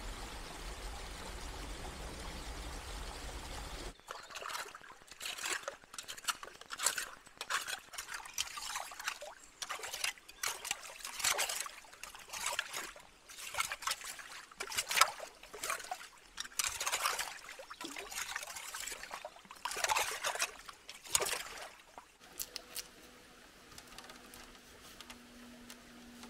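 Water pouring steadily down a small rocky stream, then, after a sudden change, a long run of separate splashes, about one a second, as stones are handled and set in shallow, muddy stream water. Near the end only a gentle trickle.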